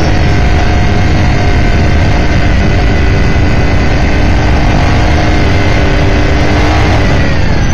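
Onboard sound of an S5000 open-wheeler's 5.0-litre Ford V8 in third gear. It comes off the throttle under braking, then holds nearly steady revs at part throttle through a long corner.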